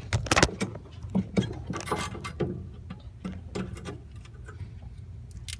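Irregular clicks, taps and rustling of handling and moving about, with a steady low hum underneath, as someone gets down into the footwell to reach the brake pedal linkage.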